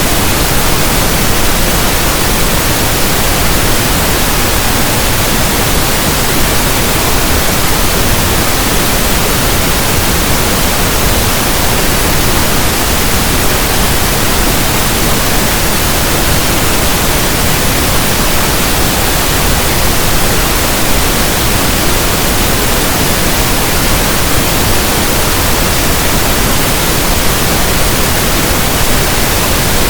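Pink noise: a steady, unchanging hiss, like static from a radio station not in tune.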